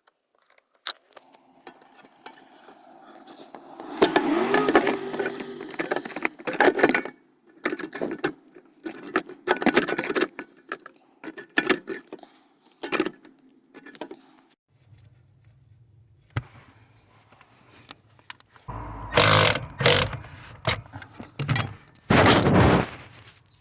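Plastic dashboard trim and parts being handled and fitted, with scraping, rustling and sharp clicks and knocks in irregular clusters. A low steady hum starts about fifteen seconds in, and the loudest knocks come near the end.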